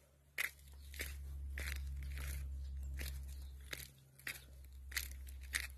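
Footsteps crunching on dry dirt strewn with gravel and debris, a bit under two steps a second, over a steady low rumble.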